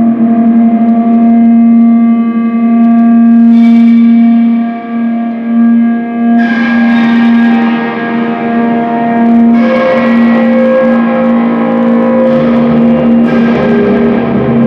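Experimental drone music: layered, sustained, reverberant tones held over a steady low drone, with new layers of tones coming in about six and ten seconds in.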